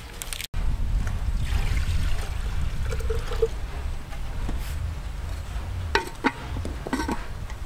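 Clay lid clinking against an earthenware cooking pot as it is set in place, a few sharp clinks about six and seven seconds in, over a steady low rumble.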